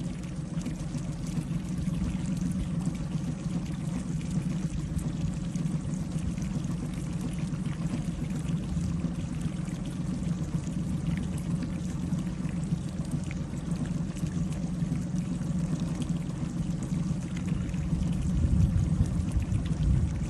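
Wind buffeting the microphone outdoors under a storm: a steady, gusting low rumble that gets louder near the end.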